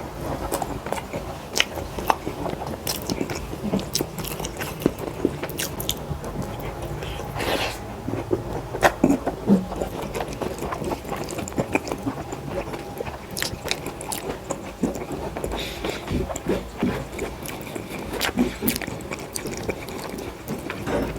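Close-up eating sounds: wet chewing and lip smacks with irregular clicks, as mouthfuls of dal rice are eaten, with occasional scrapes.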